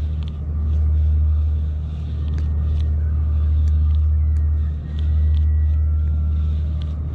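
Steady low wind rumble buffeting the microphone, with a few faint scattered ticks over it.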